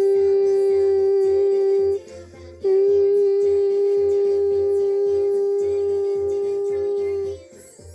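Children's song music with a steady beat, over which one loud, unwavering note is held twice: about two seconds, a short break, then about four and a half seconds.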